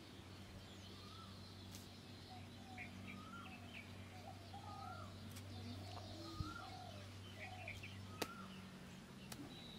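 Birds calling: a string of short chirping calls, about one or two a second, over a faint steady low hum. A few sharp clicks come as wooden sticks are pressed into a plastic ice-lolly mould.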